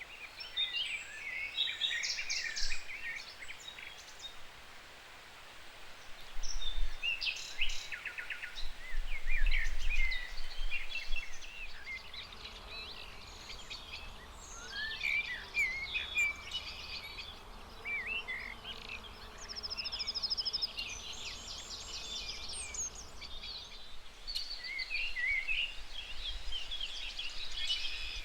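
Several songbirds chirping and singing together, short overlapping calls and fast trills throughout, with a faint low rumble about a third of the way in.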